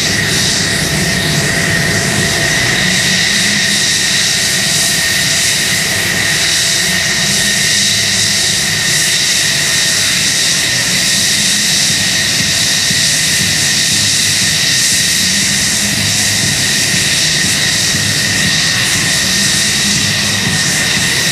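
F-16 fighter's jet engine running at ground idle: a steady high whine over a continuous rushing roar and low rumble, unchanging throughout.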